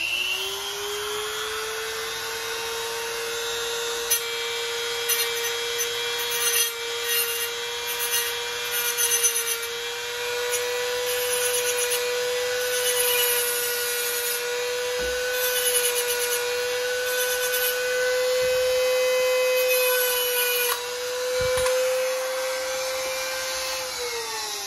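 Dremel rotary tool with a small grinding wheel spinning up to a steady high whine. Through the middle it grinds against the differential carrier's bearing race seat in intermittent rasping stretches, flattening raised metal. Near the end the motor is switched off and winds down with a falling whine.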